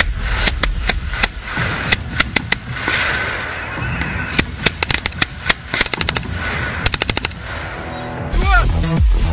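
Vehicle-mounted machine gun firing in several short bursts of rapid shots, over electronic music with a heavy bass that swells up near the end.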